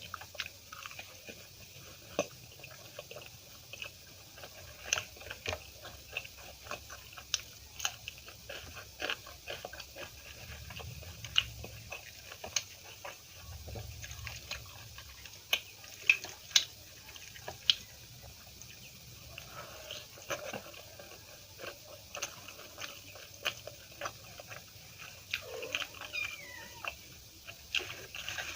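Close-miked eating sounds: chewing with wet mouth clicks and smacks, irregular and continuous. Near the end there is a brief high-pitched squeak that falls in pitch.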